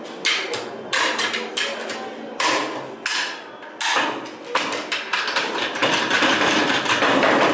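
AK-74 assault rifle parts being stripped by hand: a quick series of sharp metal clacks and clicks as the receiver cover and other parts come off and are set down on the table. A steadier, louder noise fills about the last two seconds.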